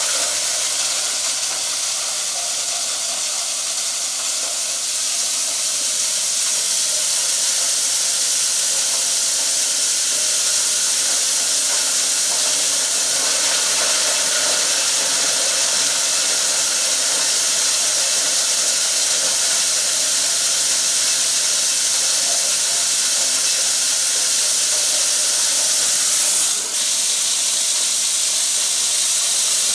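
An engine-driven chopper (crusher) running steadily under load, making a continuous high hissing rush as shredded material blasts from its outlet. There is a brief dip about 26 seconds in, after which the same sound carries on.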